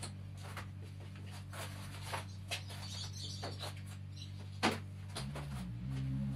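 Unpacking a large flat cardboard solar-panel box on a concrete floor: scattered taps, scrapes and rustles of cardboard and plastic strapping, with one sharp knock about two-thirds of the way through. A steady low hum runs underneath and shifts in pitch near the end.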